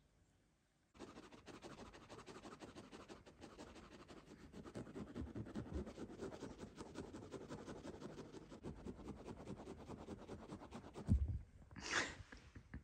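Fingers scratching rapidly and softly on woven sofa upholstery, a continuous scratchy rustle used to tease a cat into pouncing. Near the end a dull thump, followed by a short rustle.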